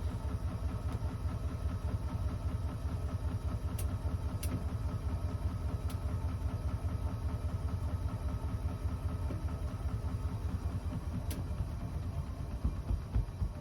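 Bosch washing machine running with a steady low rumble and a fast, even pulsing, with a few faint clicks. The machine has a fault that keeps it from spinning.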